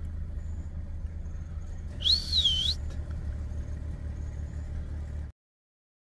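Steady low rumble of an idling vehicle engine, with one short wavering high whistle, dipping and rising in pitch, about two seconds in. The sound cuts off suddenly a little after five seconds.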